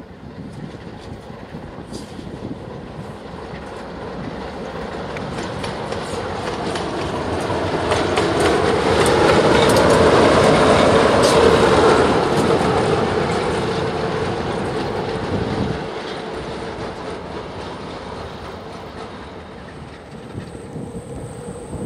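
A CFR Marfă electric locomotive passing close by, its wheels clattering on the rails over a steady hum. It grows louder as it approaches, is loudest around ten seconds in, then fades as it moves away.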